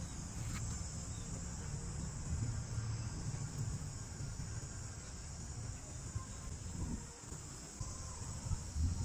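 Insects chirring steadily in a high, continuous drone, with a low uneven rumble underneath.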